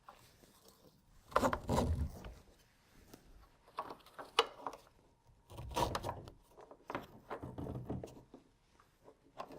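H-Crate's hold-down straps being pulled tight through their buckles: four short bursts of strap webbing rubbing and clicking.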